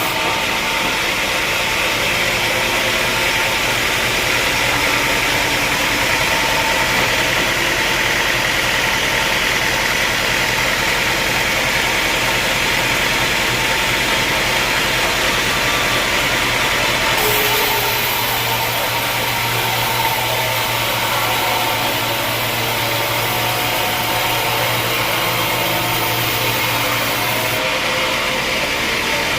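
Sawmill machinery running steadily: a motor's even hum under a loud hiss, shifting abruptly about two-thirds of the way through and again near the end.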